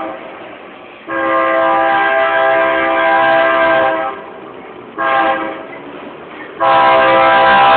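Diesel locomotive's air horn sounding a chord in separate blasts: the end of one, a long blast, a short blast, and another long blast, the long-long-short-long pattern sounded for a grade crossing.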